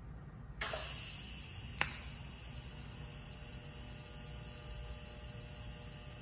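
TIG welding arc striking about half a second in, then a steady electric hiss and buzz as it welds stainless steel header tubing. A single sharp click comes about a second after the arc starts.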